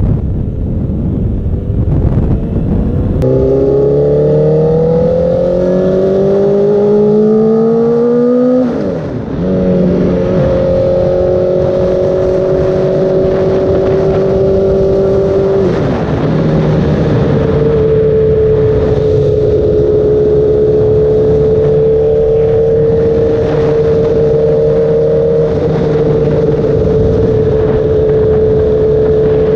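Honda CBR1000RR's inline-four engine, fitted with an aftermarket Toce exhaust, pulling away and accelerating. Its pitch climbs in a long rising pull, drops at an upshift about nine seconds in and again near sixteen seconds, then holds nearly steady at cruising speed.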